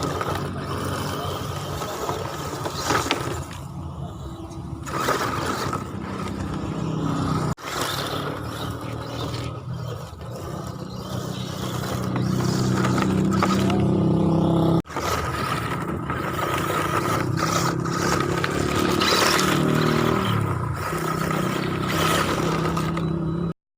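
RC short course truck's electric 540 motor and drivetrain whining up and down in pitch as the throttle is worked, over the scrape and crunch of tyres on gravel. The sound breaks off abruptly twice.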